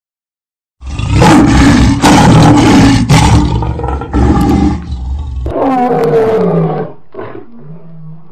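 Loud lion roar sound effect with a heavy low rumble, starting about a second in. After about five and a half seconds the rumble drops away and shorter roars follow.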